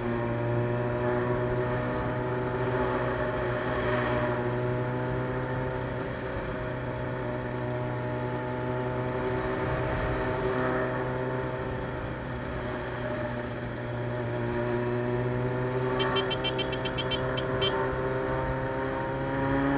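Carbureted Suzuki Bandit 600 inline-four with a straight-pipe exhaust, running steadily while riding, its pitch drifting gently up and down. A short burst of rapid high beeping comes about sixteen seconds in.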